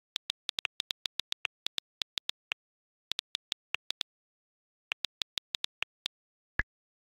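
iPhone on-screen keyboard clicks as a message is typed: quick runs of short, crisp taps several times a second, with two brief pauses. Near the end comes one deeper, fuller click.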